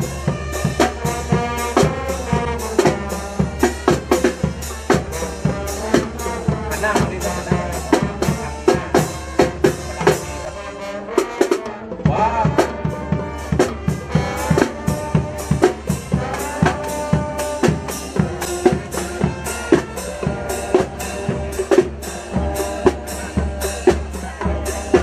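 School marching band playing: drums beat a steady march rhythm under a pitched melody, with a short break about halfway through.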